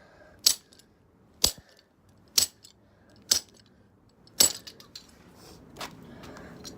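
Five sharp strikes about a second apart, smashing the plastic shell of a fake fidget cube, followed by two lighter knocks.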